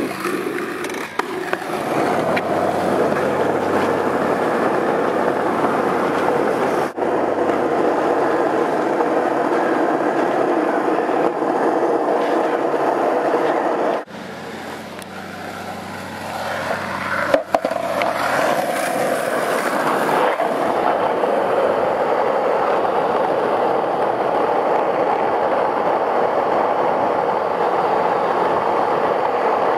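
Skateboard wheels rolling fast on rough asphalt, a steady rumble that drops out briefly a few times.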